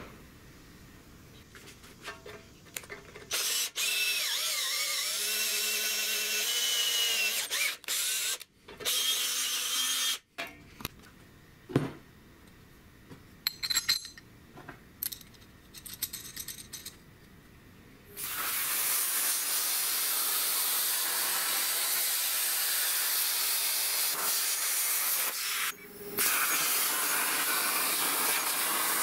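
A power tool runs for a few seconds, then small metal clicks and taps follow. From about two-thirds of the way in, a CNC plasma cutter hisses steadily as its torch cuts through metal plate, with a brief break near the end.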